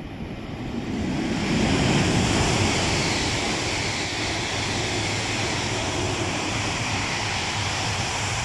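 Coupled E5 series and E6 series Shinkansen passing through the station at high speed without stopping: a loud rushing of air and wheels that builds up over the first second or so, then holds steady as the cars go by.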